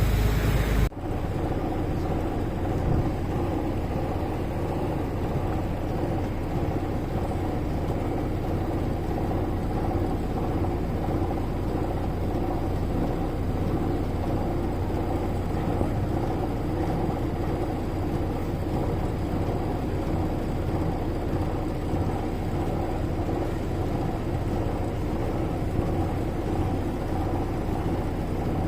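Steady hum of a running engine from a moving vehicle, with a few steady low tones in it. It follows a brief louder rushing noise that cuts off suddenly about a second in.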